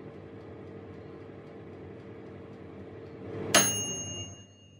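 Halogen convection countertop oven's fan running with a steady hum. About three and a half seconds in, a single sharp metallic ding rings on for about a second, and the hum then fades away.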